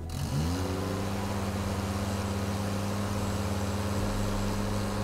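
Aerial lift's motor spinning up with a quick rising whine, then running at a steady pitch as the platform is moved closer; its tone shifts slightly about four seconds in.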